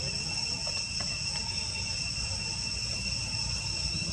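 Insects droning steadily in a continuous high-pitched chorus, over a low rumble.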